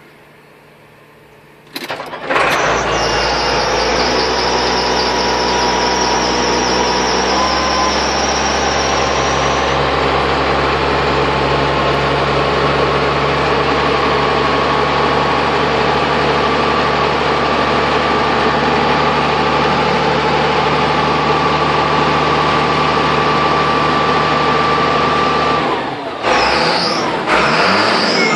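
Cold start of a Sisu TD1612 forklift's diesel engine: a brief crank about two seconds in, then it catches at once and settles into a loud, steady idle, with a high whine over the first several seconds. Near the end the sound drops and wavers.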